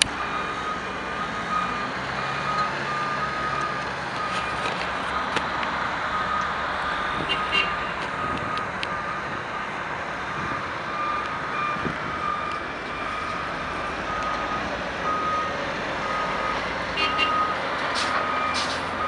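A heavy-equipment backup alarm beeping over and over, over the steady running of diesel engines, from a Hyundai wheeled excavator and an ex-military Kenworth dump truck. A few sharp clanks come about seven seconds in and again near the end.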